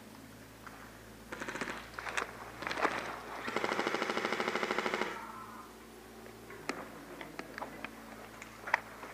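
Airsoft rifles firing on full auto: a few short bursts, then a longer burst of about a second and a half of rapid, even clicking. Scattered single sharp cracks follow near the end.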